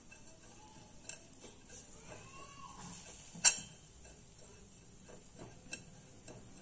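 Metal spoon stirring grated dry coconut in a stainless steel pot: faint scrapes and light clicks, with one sharp clink of metal on metal about three and a half seconds in.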